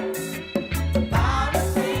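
Live band playing a reggae tune, with drum kit, bass and pitched instruments on a steady beat.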